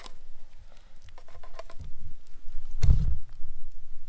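Campfire crackling in scattered sharp clicks over a low, uneven rumble, with a loud thump about three seconds in.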